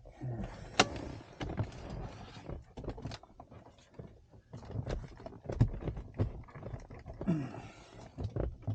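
Plastic trim pieces of a truck's rear-view mirror housing being handled and pushed back into place: a run of irregular clicks, knocks and rustling as the cover is fitted.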